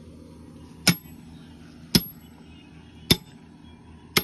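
Four hammer blows on steel, about a second apart, each a sharp clang with a brief high ring. They are typical of hammering on a tractor trolley's wheel rim to free the tyre from it.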